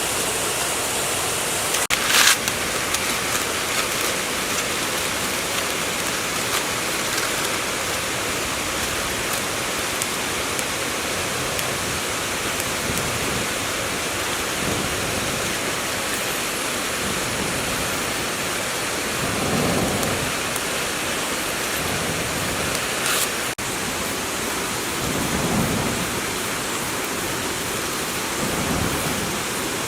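A steady, even rushing hiss. A sharp click comes about two seconds in and another at about twenty-three seconds, with a few soft low thumps in the second half.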